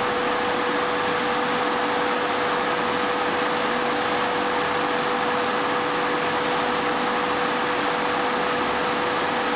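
Steady machine hum with a constant high tone, unchanging throughout, as from running electrical equipment.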